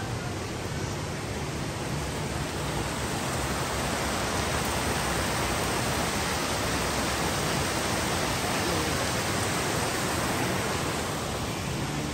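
Mountain stream rushing over a small rocky waterfall: a steady hiss that grows louder about three seconds in and fades again near the end.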